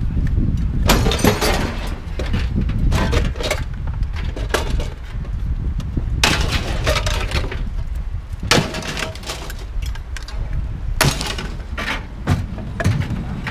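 Pieces of scrap metal being tossed onto a scrap pile, landing in loud, irregular crashes and clanks that ring briefly, over a steady low engine rumble.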